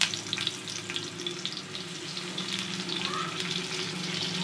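Arbi (colocasia) leaf rolls sizzling and crackling as they fry in hot oil, over a low steady hum.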